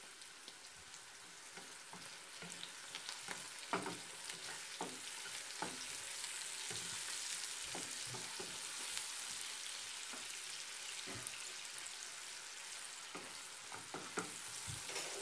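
Sliced onions, green chillies, ginger-garlic paste and whole spices sizzling in hot oil in a nonstick frying pan, growing a little louder after the first few seconds. Scattered knocks and scrapes of a spatula stirring them.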